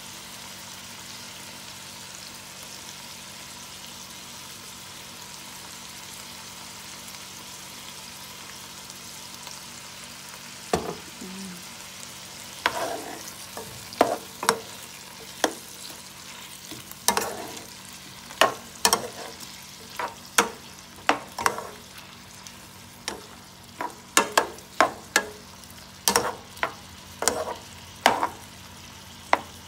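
Sausages and vegetables sizzling in a frying pan. From about ten seconds in, a cooking utensil clinks and scrapes against the pan again and again as the food is stirred.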